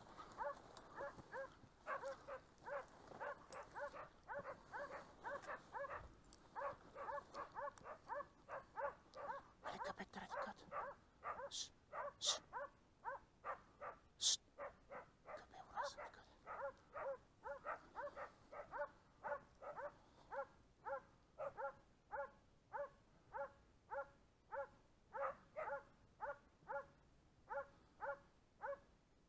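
Boar-hunting dog barking steadily and faintly, one bark after another at about two a second, slowing slightly later on: the sustained barking of a dog holding a wounded boar at bay. A few brief high squeaks sound near the middle.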